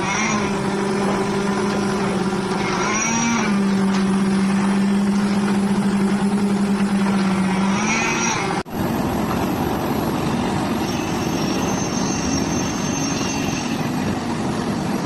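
An engine running steadily with a hum, its pitch rising briefly twice. After a sudden cut about eight and a half seconds in, a rougher, noisier engine sound.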